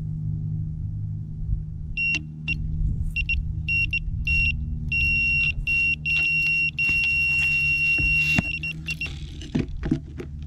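Electronic carp bite alarm beeping from about two seconds in, the beeps coming faster and merging into one long continuous tone as a carp runs with the bait and pulls line through the alarm, with ticking from the reel alongside. A few sharp knocks near the end as the rod is picked up, over a steady low rumble.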